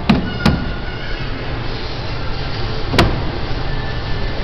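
A toddler's hands slapping the plastic body of a coin-operated kiddie ride: two quick knocks at the start and one more about three seconds in, over a steady low rumble.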